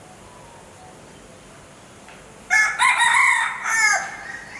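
Peafowl giving one loud, harsh call about halfway through, lasting about a second and a half in two parts.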